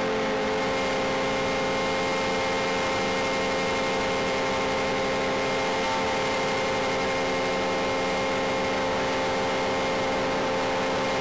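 Motors and propellers of a radio-controlled model C-124 running at steady throttle in flight, heard from on board the model: a steady drone of several pitches over a rushing noise.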